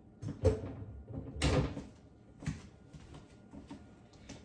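Kitchen cupboard doors and drawers being handled: several separate knocks and a longer, louder clatter about a second and a half in.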